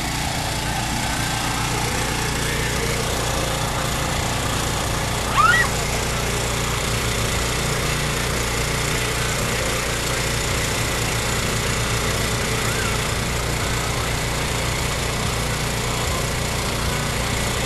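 Steady engine drone from a parked ice cream truck running. There is one short, high, rising squeak about five seconds in.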